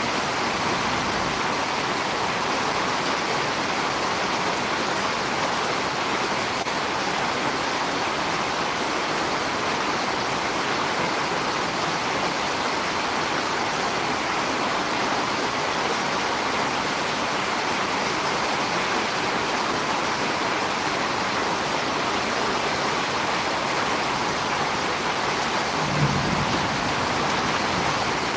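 Steady, even hiss of storm rain, unchanging throughout, with one brief low thump near the end.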